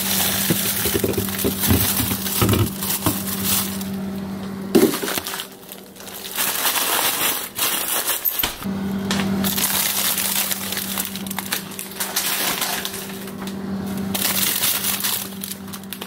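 Frozen food packages and plastic bags being handled, crinkling and rustling, with several knocks as frozen items are taken out of a freezer and packed into an insulated backpack. A steady low hum runs under most of it and drops out for a few seconds about a third of the way in.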